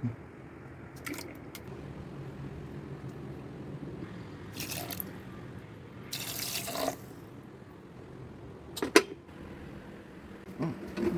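Kitchen water running or being poured in two short spells, the longer lasting about a second, with a few sharp clinks of utensils.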